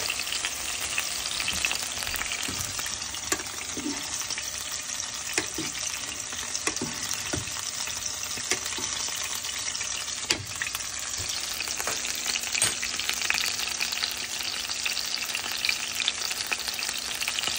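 Tuna steaks sizzling in hot oil in a frying pan: a steady frying hiss with scattered crackling pops.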